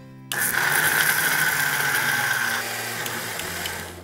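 Electric mixer-grinder with a stainless-steel jar wet-grinding soaked black rice with a little water. The motor starts suddenly, runs at full speed, drops a little in pitch and loudness past halfway, and is winding down near the end.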